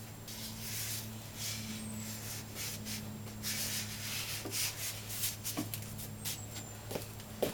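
Paper being handled and rustling in irregular soft bursts, over a steady low hum, with a few light knocks near the end.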